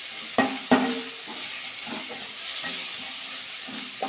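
Sliced onions sizzling steadily in hot mustard oil in a kadai, being lightly fried. A wooden spatula stirs them, knocking and scraping against the pan several times, the two loudest knocks within the first second.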